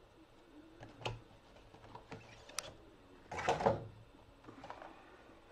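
Packaging handled while a boxed figure is pulled from a shipping box: a few light knocks, then a short sliding, rustling scrape about three and a half seconds in.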